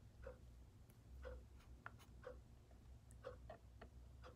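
Near silence with faint, scattered scratches and small clicks of hand handling, a few per second.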